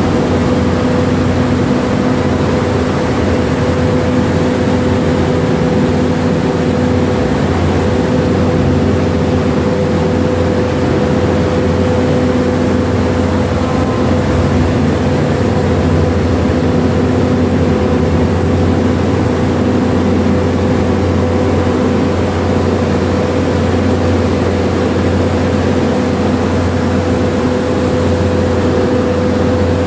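Steady drone of a ship's engines and machinery while under way: a low hum with a couple of steady tones over it.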